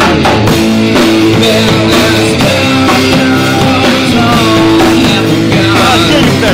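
A live rock band playing loudly, with electric guitars and a drum kit.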